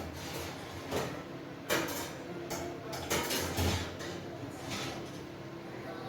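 Light kitchen clatter: a few knocks and clunks of things being handled and set down, over a steady low hum.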